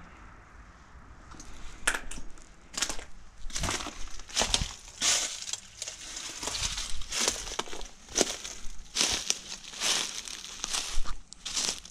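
Footsteps crunching over dry debris underfoot: irregular crunches, roughly one or two a second, beginning about two seconds in.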